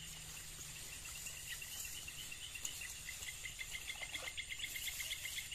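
Night insects: crickets keep up a steady high trill, and a fast, even chirping starts about a second and a half in and grows a little louder.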